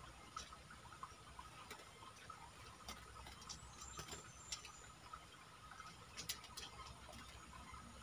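Faint outdoor ambience of scattered soft clicks and ticks, with a brief faint high whistle about three and a half seconds in.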